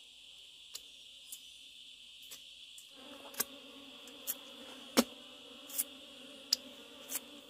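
A steady, high chirring chorus of crickets and other insects, with a string of about nine sharp knocks or taps at irregular intervals, the loudest about five seconds in. A low steady hum joins about three seconds in.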